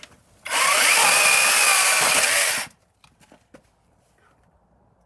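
Chainsaw running at full speed in one burst of about two seconds. Its whine climbs about half a second in, holds steady, then cuts off abruptly. A few faint clicks follow.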